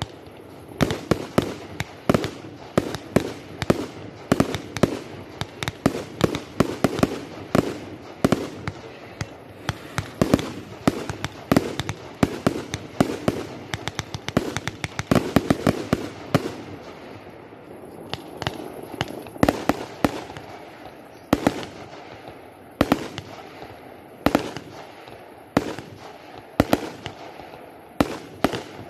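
Fireworks display: aerial shells bursting in a rapid string of sharp bangs, several a second, thinning to more widely spaced bangs about halfway through.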